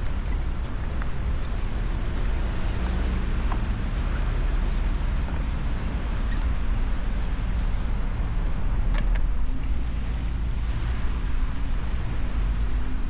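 Motorcycle engine running at a steady pace while riding, with a steady low drone and wind rushing over the microphone.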